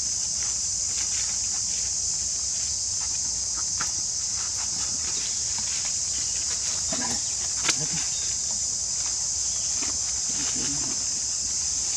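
Steady, high-pitched buzzing drone of insects, with scattered soft clicks and one sharper click about eight seconds in.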